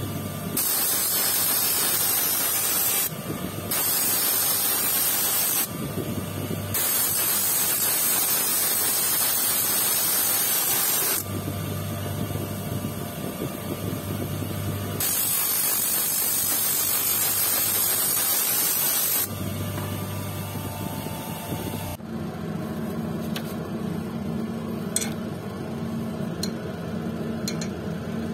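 A quartz stone on a dop stick ground against a spinning lapidary disc, making a loud grinding hiss in several stretches of a few seconds each, with the electric motor's steady hum between them. About three-quarters of the way in the grinding stops, leaving the motor hum and a few light clicks.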